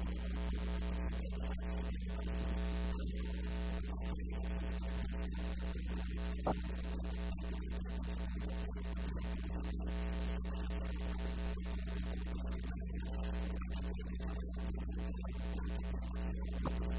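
Steady electrical mains hum with a buzz of many overtones running through the audio, and a single short click about six and a half seconds in.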